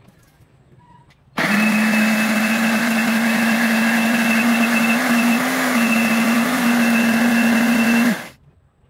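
Philips 600 W countertop blender switched on about a second and a half in, running steadily as it grinds soaked dried red chilies into a wet paste. It is switched off near the end and winds down quickly.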